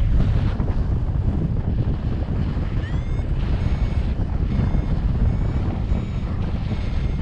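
Airflow rushing over the microphone in paraglider flight. From about three seconds in come the electronic beeps of a flight variometer: a few quick rising chirps, then a run of short beeps about twice a second, the climb tone that signals the glider is rising in lift.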